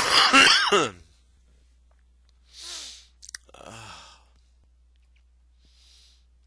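A man's loud, breathy sigh with his voice falling in pitch, in the first second; two softer sighing breaths follow about three and four seconds in.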